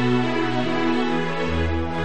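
Background music of long held notes, with a deep bass note coming in about one and a half seconds in.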